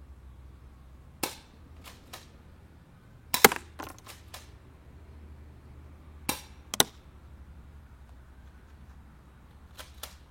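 Spring-powered pump-action airsoft shotgun being pumped and fired: a series of sharp clicks and snaps in small groups, loudest about three and a half seconds in.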